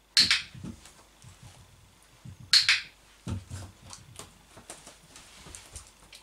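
Dog-training clicker clicked twice, about two and a half seconds apart, each click a quick double snap marking the dog resting its chin on the chair; after each click come soft knocks and the light tapping of the dog's claws on the wooden floor.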